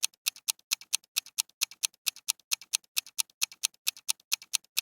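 Countdown timer sound effect: a clock ticking quickly and evenly, about four to five ticks a second.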